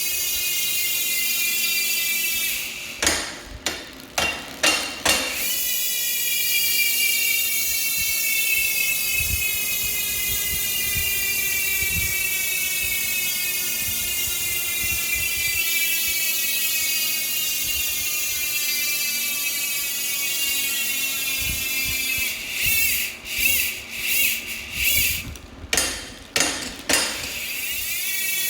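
Industry Nine Hydra rear hub freewheeling with its original factory grease, its many pawls making a continuous high-pitched buzz that slowly drops in pitch as the wheel coasts down. About three seconds in and again near the end it breaks into a few short stop-start bursts, then the buzz returns higher and falls away again.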